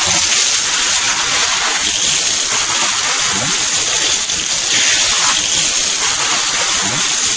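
Steady jet of water from a hose splashing onto wet floor tiles and pouring through the grating of a trench (channel) drain, which takes the water away.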